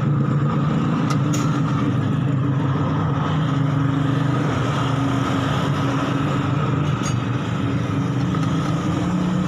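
Small two-stroke engine of a Yamamaxpro 1-inch irrigation water pump running steadily at a constant speed.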